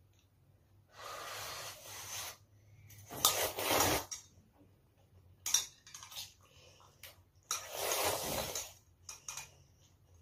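A child slurping instant ramen noodles and broth from a bowl held to his mouth: three long slurps, the second the loudest, with a few light clinks of chopsticks and spoon against the bowl between them.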